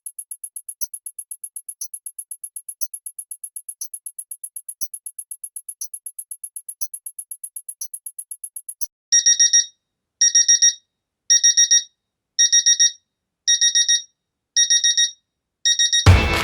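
Rapid, even clock ticking with a short high beep once a second, then, about nine seconds in, an alarm clock going off: seven short bursts of rapid beeping, about one a second. Music comes in right at the end.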